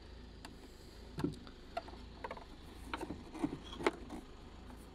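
Irregular light clicks and knocks of a car's plastic rear light unit and bulb holder being handled during refitting, the sharpest about four seconds in, over a faint steady low hum.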